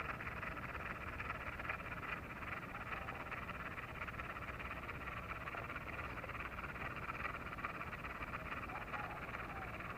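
A dense, steady chorus of frogs calling, with a low rumble underneath.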